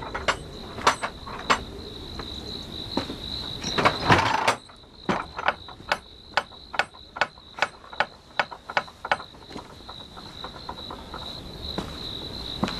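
Insects trilling steadily at one high pitch, under a series of sharp knocks. A louder clatter comes about four seconds in, followed by a regular run of about three knocks a second that stops about nine seconds in.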